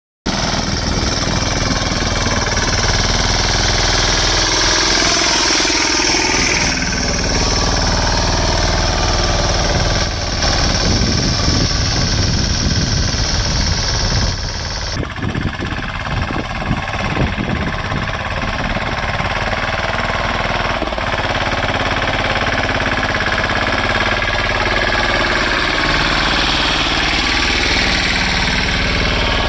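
Mahindra Yuvraj 215 mini tractor's single-cylinder diesel engine running steadily under load while pulling a seven-tine cultivator through the soil.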